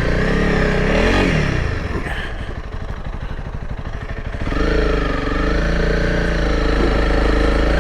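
Honda CRF300L Rally's single-cylinder four-stroke engine revving up and back down about a second in, settling to a low, pulsing idle, then picking up again and pulling steadily from about halfway as the bike works through soft sand.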